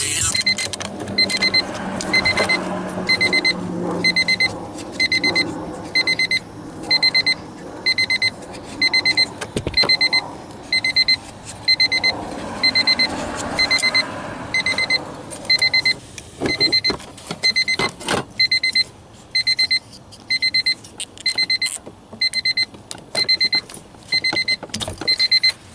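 The 1997 Honda Civic's warning buzzer beeping in a steady, rapid, even rhythm, over scattered clicks, knocks and rustling of hand work on the driver's-side door speaker.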